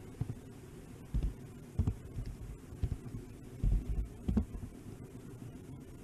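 Steady low rumble of a model train running along the track, picked up by a camera riding on it, with several irregular dull thumps and knocks as it rolls.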